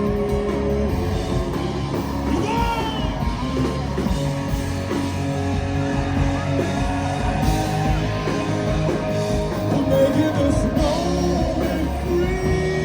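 Live rock band music: a guitar-led rock song played on stage, with some singing over it.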